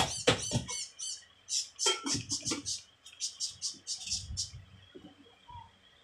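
Small birds chirping in quick runs of short high calls, stopping about four and a half seconds in. Two sharp knocks right at the start and a few dull thumps come from work close by.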